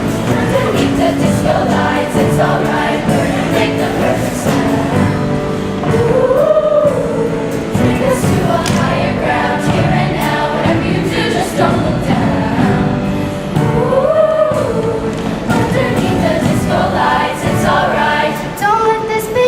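A choir singing in harmony, with sliding melody lines over held chords.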